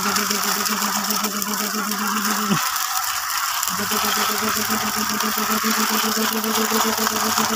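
Plastic toy dump trucks' geared wheels whirring steadily with a fast rattle as they are pushed along concrete. The whir stops about two and a half seconds in, its pitch dropping, and starts again a second later.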